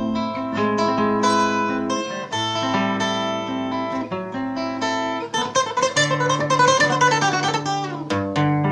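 Guitar played fingerstyle: a running line of single plucked notes over held bass notes, a hard passage being worked on for clean articulation.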